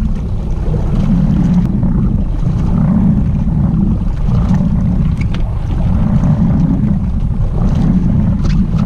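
Wind buffeting the microphone on an open boat deck, a heavy low rumble that swells and eases every second or so, over the wash of water and the boat's hull.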